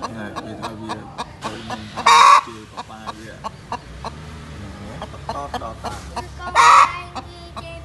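Brahma chickens clucking, with two loud, short, harsh squawks, one about two seconds in and another about four seconds later.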